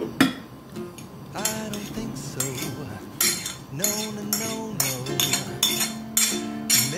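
A metal spoon clinks and scrapes against a glass bowl as a chopped salad is stirred, then a spoon scrapes blended cauliflower off a plate into the bowl. It makes a run of quick, irregular clinks and scrapes.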